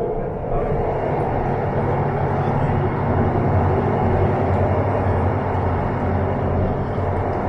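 Passenger train running along the track, heard in the vestibule between carriages: a steady, loud rumble of wheels and running gear with a low hum underneath.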